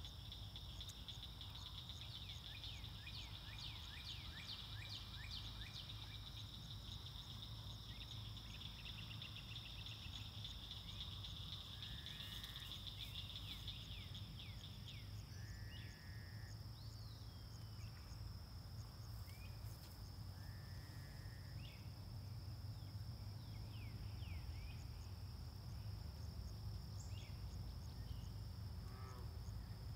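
Faint evening chorus of insects and birds: a steady high-pitched insect drone throughout, a fast pulsing insect trill that stops about halfway through, and scattered short bird chirps and calls, over a low steady rumble.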